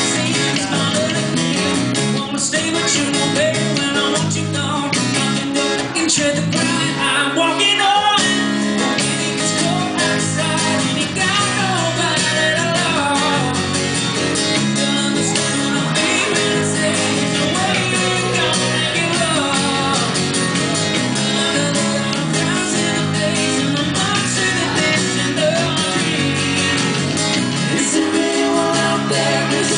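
Live acoustic trio music: two acoustic guitars strummed along with a third guitar, and a voice singing.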